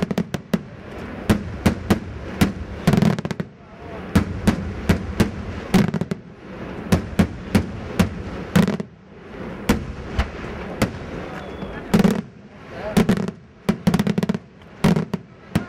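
Daytime aerial fireworks: a rapid, irregular series of sharp bangs from shells bursting overhead, coming in volleys of several a second with a few brief lulls.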